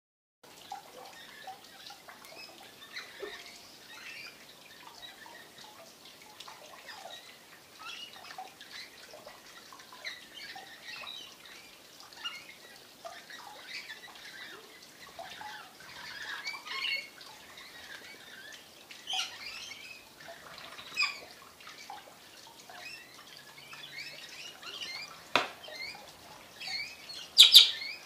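Rainbow lorikeets chattering with many short, shrill squawks and chirps, a few calls louder than the rest. A sharp click comes shortly before the loudest squawk, near the end.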